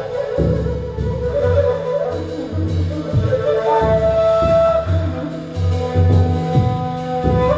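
Ney (end-blown reed flute) playing a slow melody of held notes over deep, soft drum beats struck with a mallet.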